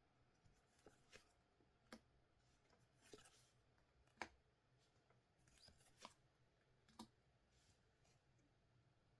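Faint handling of trading cards and their packaging: a scattering of sharp clicks and taps, the loudest about four seconds in, with a couple of brief rustles between them.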